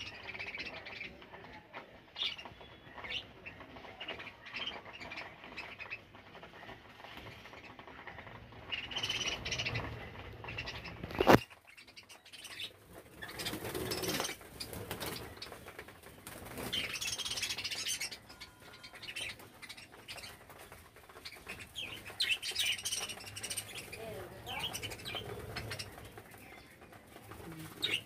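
A flock of budgerigars chirping while feeding, with wings flapping as birds fly off and land. A single sharp click about eleven seconds in.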